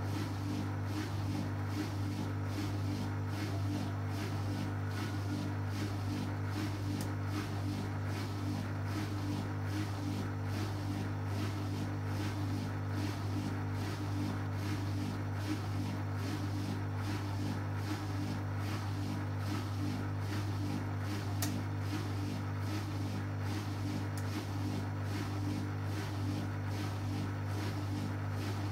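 Beko BKY 2317 B front-loading washing machine running mid-cycle, a steady low hum that does not change.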